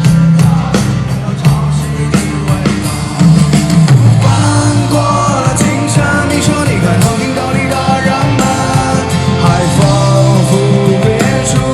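Background rock music with guitar, drums and singing.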